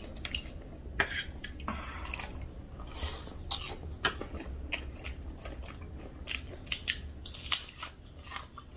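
A person biting and chewing crunchy snack food, with many short, irregular crunches.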